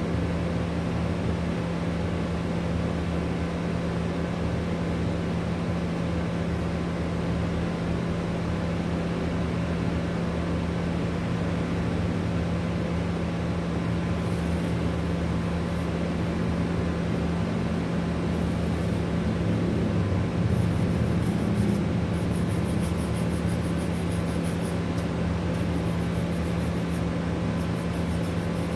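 A steady mechanical hum with a constant low tone, unchanging throughout, with faint fine ticking in the last third.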